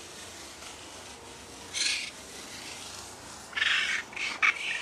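Feet crunching and rustling in dry fallen leaves: a short rustle about two seconds in, then a cluster of rustles near the end.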